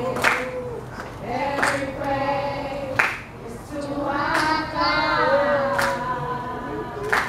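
A young girl singing into a handheld microphone in long held notes, with a few sharp claps or knocks spaced about a second and a half apart.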